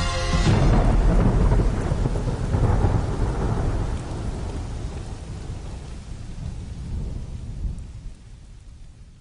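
A long rumble of thunder with a rain-like hiss, starting as music cuts off about half a second in and fading gradually over the following seconds.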